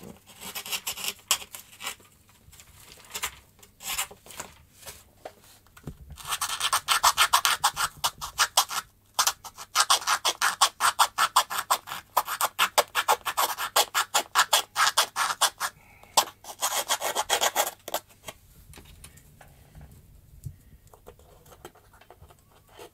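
Small hand file rasping against an F3K glider's throwing peg in quick back-and-forth strokes, in bursts with short pauses, loudest through the middle stretch and fading near the end. The peg is being filed down to fit its cutout in the wing.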